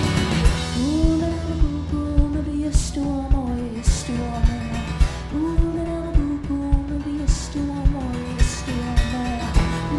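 Live band music: an even drum beat of about two hits a second, with guitar, under a melody line that slides between long held notes.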